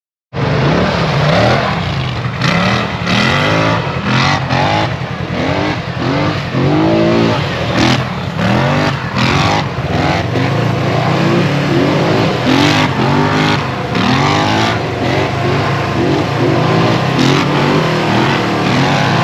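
Off-road side-by-side engine revving up and down over and over, rising and falling in pitch every second or so, with scattered sharp knocks.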